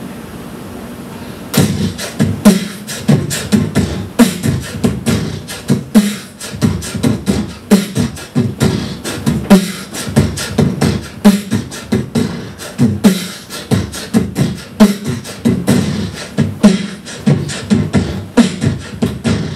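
Beatboxing into a microphone held in cupped hands: after a short hiss, a steady, fast rhythm of percussive mouth sounds starts about a second and a half in and keeps going.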